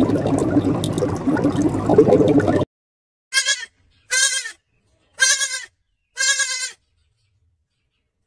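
Rushing water noise that cuts off suddenly about two and a half seconds in, followed by four short bleats, each about half a second long and about a second apart.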